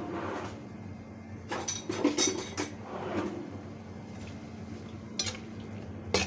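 Kitchen utensils clinking and knocking against cookware: a quick cluster of strikes in the middle, then two more near the end, over a steady low hum.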